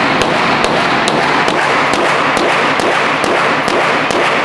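Handgun shots fired in quick succession at an indoor shooting range, about two a second, over a dense steady din of echoing gunfire from the range.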